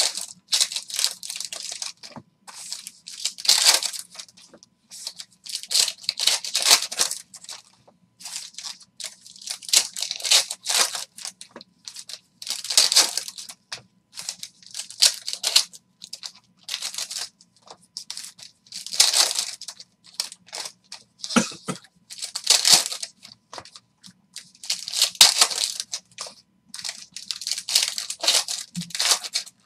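Foil trading-card pack wrappers being torn open and crumpled by hand, in a long string of short, crackly rustles.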